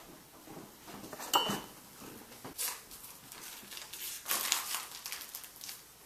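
Handling noises from making pie crust at a steel mixing bowl: a sharp clink with a short ring about a second and a half in, then several bursts of rustling and crinkling.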